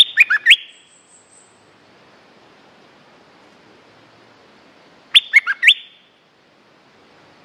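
A bulbul calling: two short, quick phrases of sharp whistled notes, one at the very start and another about five seconds in.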